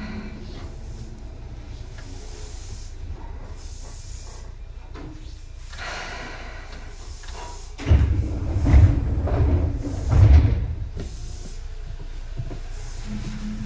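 Seibu 2000 series electric commuter train, seemingly standing still: a hiss of air about six seconds in, then loud low thuds and rumbling starting suddenly about eight seconds in, with a second peak about ten seconds in. A steady hum comes back near the end.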